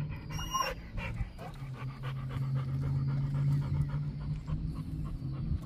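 XL American Bully puppy panting rapidly with its mouth open and tongue out, hot from walking in the summer sun. A brief high-pitched squeak sounds about half a second in.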